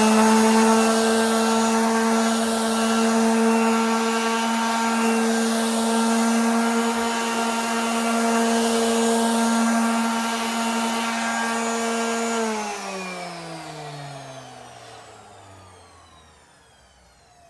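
Loud electric sander running at a steady whine with a sanding hiss as it smooths a water-damaged laminate drawer; it is switched off about twelve seconds in and its motor winds down in pitch over a few seconds.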